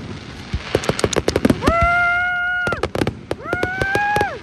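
Aerial fireworks bursting: a run of sharp bangs and crackling shells. Over the bangs come two long, high-pitched held calls, each about a second long, sliding up at the start and dropping away at the end.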